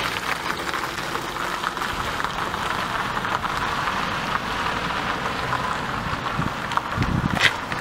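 Steady rain: an even hiss dotted with fine crackling drops. A few low thumps come in near the end.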